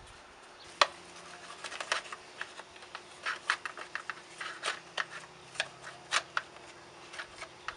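Hand pulling the factory spark plug tool from its holder in the engine bay: a string of irregular clicks and knocks, the loudest about a second in.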